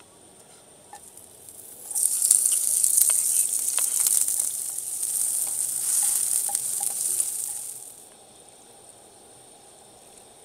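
Loud sizzling, crackling hiss that starts suddenly about two seconds in and dies away near eight seconds.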